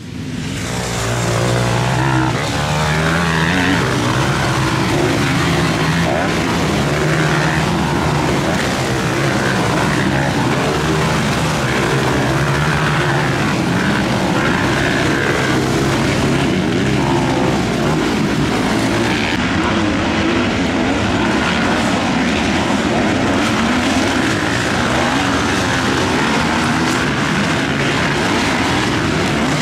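Several motocross bike engines running at once as the pack races past, their pitch rising and falling as the riders open and close the throttle.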